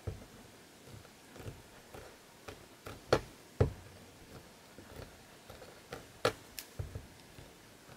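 Scattered light taps and knocks, with a few louder ones in the middle, as a polymer clay cane is pressed and shaped by hand on a hard work surface.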